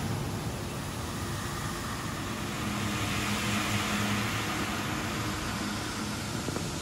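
B&W 2000 eight-cylinder, double-acting two-stroke diesel engine running, a steady mechanical hum under an even hiss.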